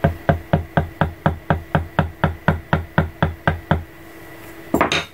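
Wooden mallet tapping a leather stamping tool into the leather in a steady run of strikes, about four a second, that stops a little before four seconds in. One short knock follows near the end.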